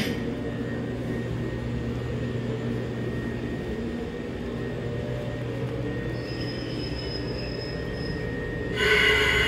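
A steady low mechanical hum with a faint rumble. Near the end, an eerie music track comes in suddenly and is the loudest sound.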